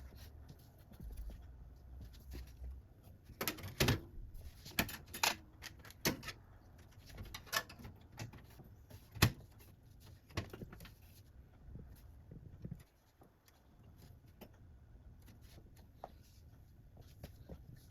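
Irregular clicks and knocks of computer parts and the case being handled during PC assembly. The knocks are busiest in the first half, with the sharpest one about nine seconds in, and thin out to light ticks later.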